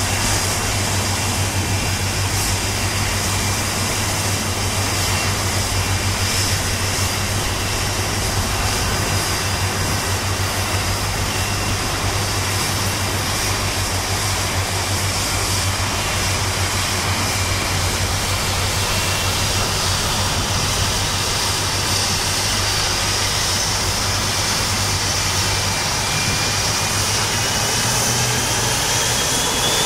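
Jet airliner engines, a steady broad rush, with a thin whine rising in pitch near the end.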